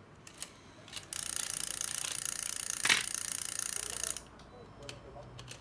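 Small clicks from the parts of a MiniDisc deck's loading mechanism being handled. About a second in, a harsh whirring buzz starts and runs for about three seconds, with one sharp click in the middle, then stops suddenly and is followed by a few scattered ticks.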